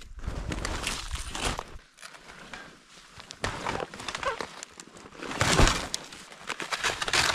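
Heavy footsteps crunching in deep snow, in an irregular series of steps, with the loudest crunch a little past halfway.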